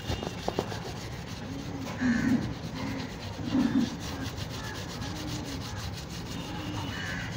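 Soaped steel wool scrubbing rust off the chrome spoked rim of a Yamaha RX 135 motorcycle wheel, in rhythmic back-and-forth strokes a little more than one a second.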